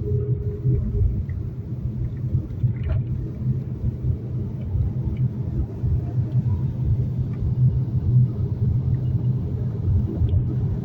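Steady low rumble of a GAZelle Next van on the move, heard from inside the cab: engine and road noise.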